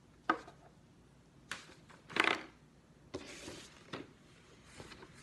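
Paper and a paper plate being handled: a series of short rustles and crinkles, the loudest about two seconds in and a longer one a little after three seconds.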